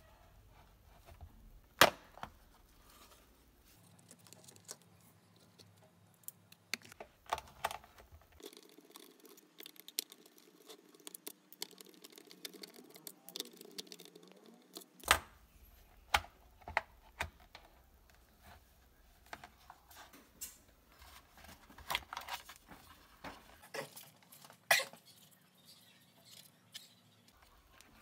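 Scattered sharp clicks and taps of a plastic humidifier housing being handled and its base screws being undone with a screwdriver. The loudest clicks come about two seconds in, near the middle and near the end.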